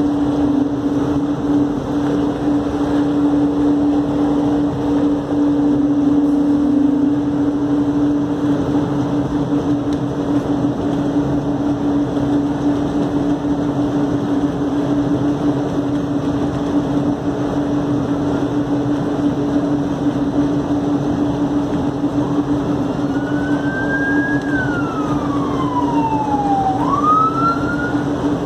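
Inside a DFW Skylink people-mover car (Bombardier Innovia APM 200) as it runs: a steady hum and running noise, and in the last few seconds the electric drive's whine glides up, falls, then rises again as the train changes speed.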